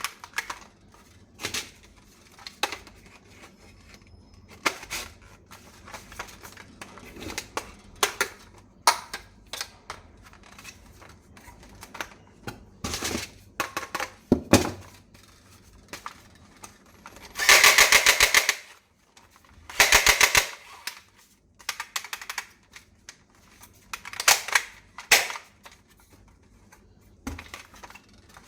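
Plastic toy rifle handled, with scattered clicks and knocks, then firing two loud bursts of rapid clicks, one of about a second and a second, shorter one.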